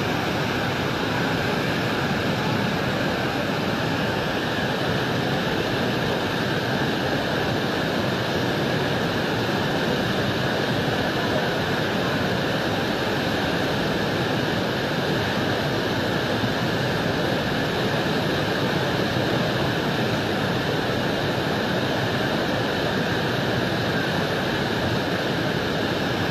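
Muddy floodwater of a river in flash flood rushing past as a steady, unbroken torrent.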